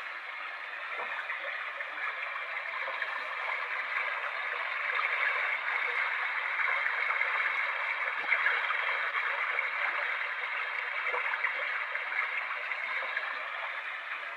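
A sleep sound machine playing a running-water sound, like a brook, through its small speaker. The sound is a steady, thin rushing hiss that swells louder through the middle and eases off near the end.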